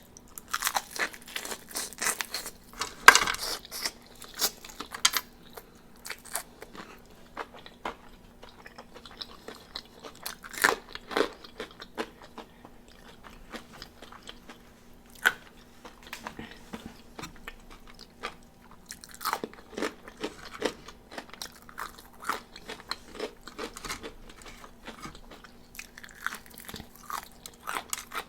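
Close-up eating sounds: crispy fried chicken wings being bitten and chewed, with repeated sharp crunches of the breading and softer chewing between them, loudest in the first few seconds.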